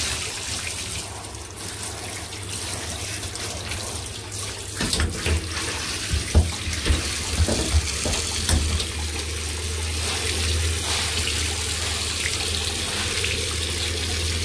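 Water running from a tap into a bathtub while dyed cloth is rinsed and handled, with a cluster of knocks and splashes about five to eight seconds in, then a steady flow.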